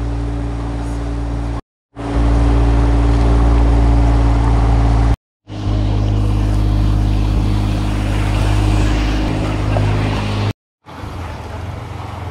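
Canal tour boat's motor running with a steady low drone, heard from aboard the boat. The sound drops out into brief silence three times and is quieter in the last second or so.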